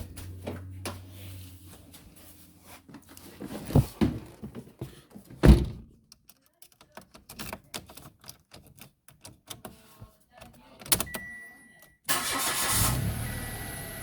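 Clicks and knocks of handling in the car, then a short beep, and about twelve seconds in the Mitsubishi Mirage's engine starts with a brief burst and settles to a steady idle while a chime beeps on and off.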